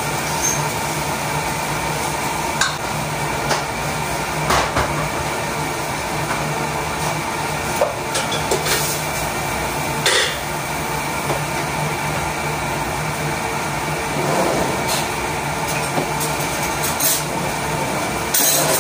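A steady mechanical hum with occasional sharp clinks and knocks of cookware: a spatula against a pan and pots being handled on the stove.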